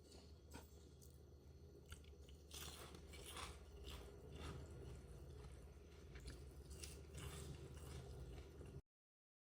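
Faint crunching and small clicks of someone biting and chewing crisp fried food, which cuts off abruptly near the end.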